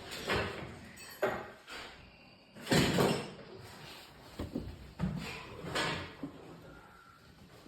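Refrigerator door and drawers being opened and handled: a series of knocks, scrapes and clatters, the loudest about three seconds in.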